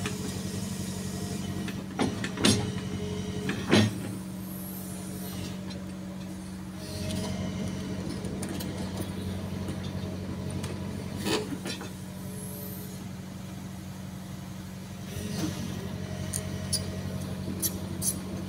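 JCB JZ 235 LC crawler excavator's diesel engine running steadily as the machine works its boom and bucket, the engine note picking up about seven seconds in and again near fifteen seconds. Sharp metallic clanks come about two to four seconds in and once around eleven seconds, with light clicks near the end.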